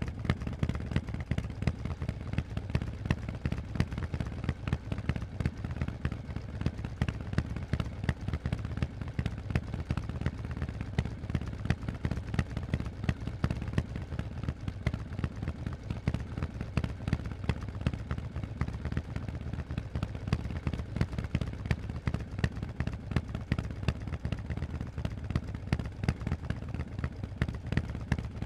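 Harley-Davidson Forty-Eight's air-cooled V-twin running through Vance & Hines aftermarket exhausts, a steady stream of low, rapid exhaust pulses with no big rise or fall in revs.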